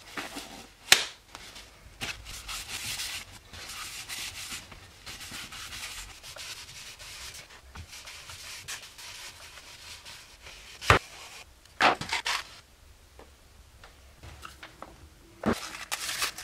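A rag rubbing over a wooden snare drum shell, wiping on a coat of shellac, with a few sharp knocks of the shell or jar on the table along the way.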